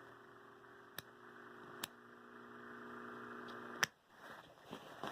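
Bare box fan electric motor running with a faint, steady hum, with light clicks about one and two seconds in. A sharp click about four seconds in, after which the hum stops.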